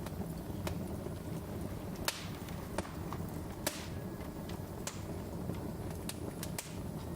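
Wood fire crackling in a fireplace: a steady low rumble with irregular sharp pops, two louder ones about two and three and a half seconds in.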